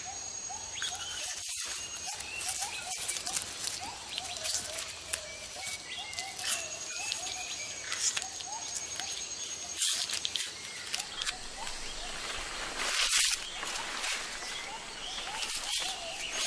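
Tropical rainforest ambience: a dense high hiss of insects with a thin, steady insect whine that comes and goes, under a long run of short repeated chirping calls, about four a second, and a few brief rustling crackles.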